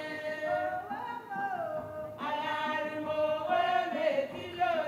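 A group of women singing together without instruments, in long held and gliding notes.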